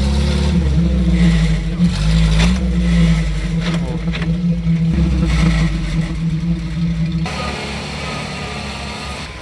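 Off-road vehicle engine revving up and held at high revs under load, with a few sharp knocks. About seven seconds in the sound switches abruptly to a quieter, lower engine note.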